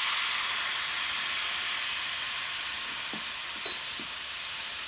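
Soy sauce sizzling and steaming as it hits a hot non-stick frying pan, a steady hiss that slowly fades. A short beep and a few faint clicks come near the end.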